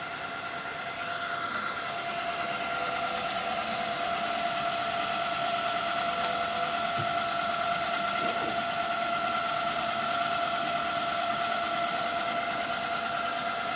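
DTF printer running: a steady machine hum with a constant whine, growing louder a second or two in, with a few light clicks.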